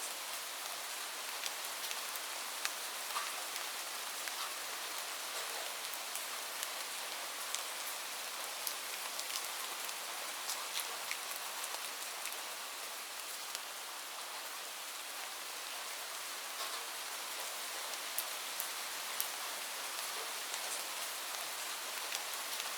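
Light rain falling steadily, a soft even hiss with the sharp ticks of single drops hitting a surface scattered through it.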